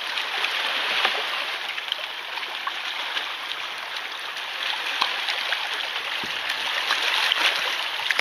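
Water lapping and trickling against a kayak hull and shoreline rocks: a steady watery hiss dotted with small drips and splashes.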